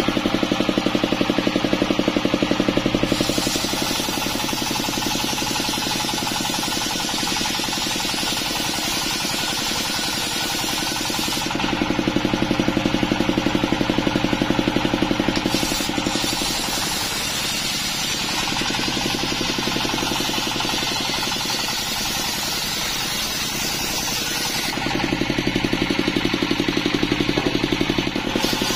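Red horizontal single-cylinder diesel engine running steadily, belt-driving a large circular saw blade that rips a split coconut-palm trunk. The sound swells louder and heavier three times for a few seconds each, with a hissy, slightly quieter run between.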